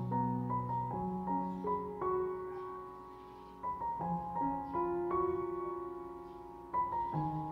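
Background piano music, with notes struck and held in overlapping chords.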